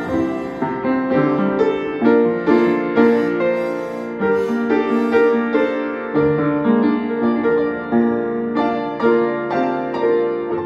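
Upright piano being played: a continuous run of notes over chords, with a new note or chord struck several times a second.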